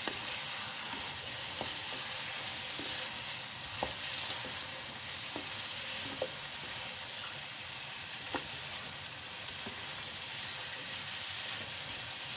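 Thick mutton masala sizzling steadily in oil in a pan while a wooden spoon stirs it. Several short scrapes and taps of the spoon against the pan stand out.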